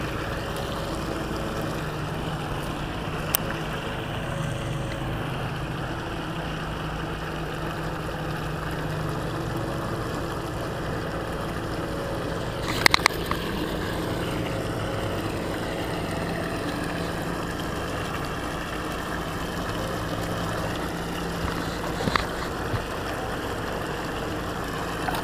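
Steady outdoor background noise with a faint low hum underneath, broken by a few short clicks, including a quick cluster of them about halfway through.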